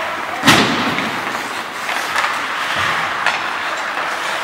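Ice hockey play in an ice rink: skates scraping on the ice with a sharp knock of stick or puck about half a second in, and a fainter one at about three seconds.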